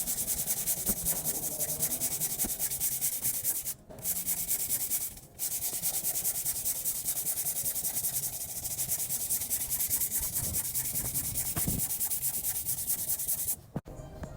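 Power sander running on a car's rear body panel, a steady rasping hiss with two short pauses about four and five seconds in, stopping just before the end.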